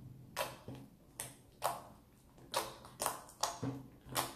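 Homemade slime being kneaded and pressed against a tabletop by hand, making irregular wet clicks, about two a second. The slime is firming up with added activator and has turned stretchy and clicky.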